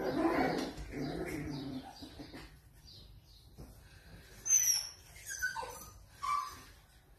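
Puppies play-fighting: low growling for the first two seconds, then a few short, high squeaks that slide down in pitch between about four and a half and six and a half seconds in.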